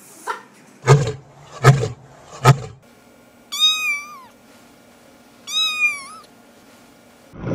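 A blue-and-gold macaw gives three short, sharp squawks, a little under a second apart; then a kitten meows twice, two high drawn-out meows that drop in pitch at the end.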